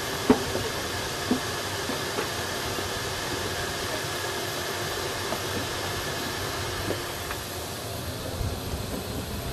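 Steady jet whine and rushing hiss of a C-17 Globemaster III running on the ramp, with a thin high tone that stops about seven seconds in. A few sharp knocks near the start as people climb the aircraft's boarding stairs.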